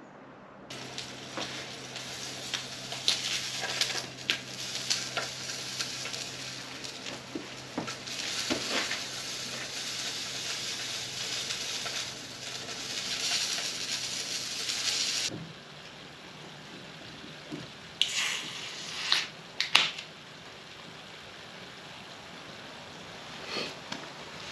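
Food sizzling and crackling in a pan on a Trangia camping stove, cutting off abruptly about fifteen seconds in. A few short clatters follow.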